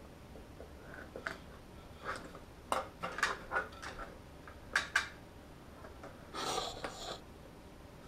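Computer parts and a stiff power cable being handled and set down on a cardboard-covered table: scattered light clicks and knocks, with a brief rustle about six and a half seconds in.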